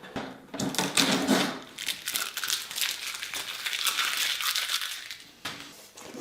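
Packaging crinkling and rustling as a new printer is lifted out of its box and unwrapped, with irregular crackles and a sharp knock near the end.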